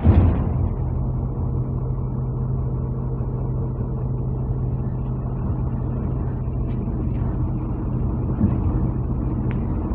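Cabin sound of a MAZ-203 low-floor city bus under way: its engine drones steadily at one pitch over road noise. A short loud burst of noise comes right at the start.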